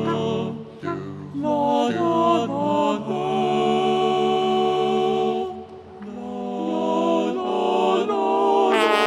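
Music of voices singing held, chant-like notes in harmony, the chord changing about every second at first, then a long held chord; a brighter, fuller sound comes in near the end.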